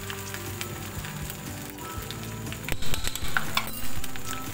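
Batter-coated chicken pieces deep-frying in hot oil over a high flame: a steady sizzle with crackles, louder for a moment about three seconds in.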